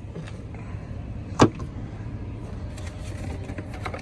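Footsteps crunching in snow over a steady low hum, with one loud, sharp knock about a second and a half in.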